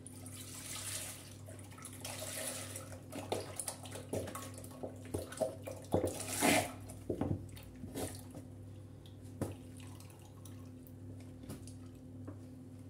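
Milk pouring from a one-litre carton into a stainless-steel pot, splashing and trickling unevenly as the carton is tipped and squeezed empty, with a few louder bumps along the way.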